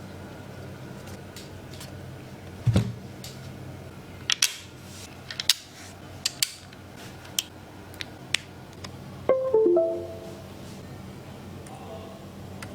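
Mechanical keyboard keys clicking one or two at a time at irregular intervals, over a low steady hum, with a brief run of pitched musical notes about nine seconds in.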